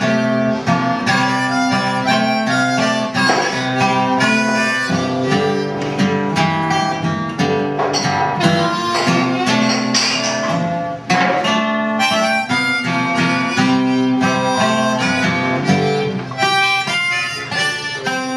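Harmonica in a neck rack and an acoustic guitar played together by one musician, the harmonica's reedy held notes over a steady rhythm of guitar strokes.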